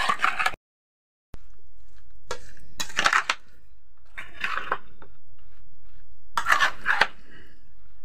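Metal spoon scraping and clinking against a metal bowl as tamarillo pickle is stirred, in three short spells of clatter. A brief total silence about half a second in.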